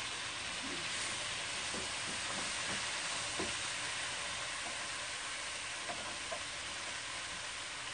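Pork and vegetables for jjajang sauce sizzling steadily as they stir-fry in a frying pan, with a few faint clicks of chopsticks stirring.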